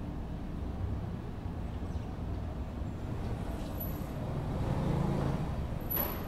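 Residential street ambience: a steady low traffic rumble, with a car swelling louder as it passes about three-quarters of the way in, and a single sharp click near the end.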